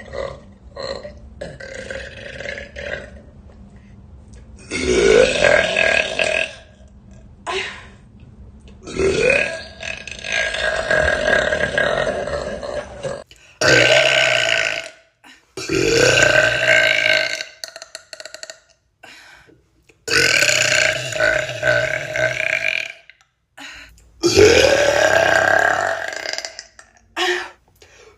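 A woman burping: a series of long, loud burps one after another, each rising in pitch at its start and then held.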